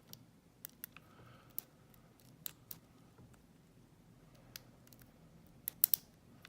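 Light metallic clicks and ticks of a lock pick and tension wrench working the pins of a small Lockwood 232 padlock, scattered and irregular, with a quick cluster of sharper clicks near the end.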